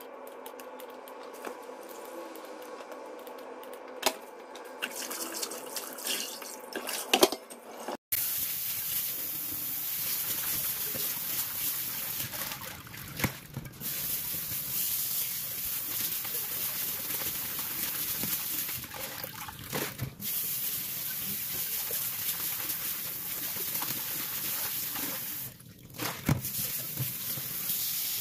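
For the first several seconds, scissors snip the stems with a few sharp clicks. Then, after a cut about eight seconds in, a tap runs steadily into a stainless steel bowl of leaves in a steel sink, while hands swish the leaves in the water.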